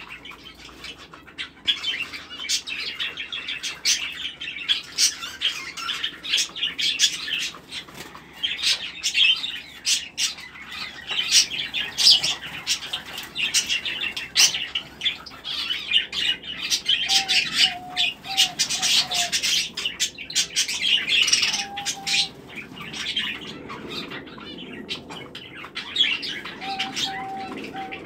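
A mixed flock of small cage birds chirping nonstop in a dense, high chatter, with wings fluttering. A few short, lower, steady notes come in a run about two-thirds of the way through and again near the end.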